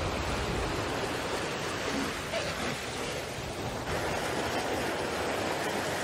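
Sea water rushing and splashing along the hull and in the wake of an IMOCA 60 racing yacht sailing fast, a steady rush that cuts off suddenly at the end.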